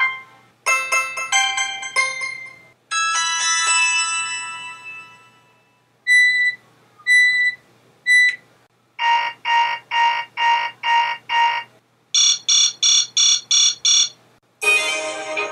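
A series of BlackBerry Bold 9700 ringtones and alert tones played one after another: a short run of chime notes, a held chord that fades out, three single beeps about a second apart, seven pulsing buzzes, then a faster run of high pulses.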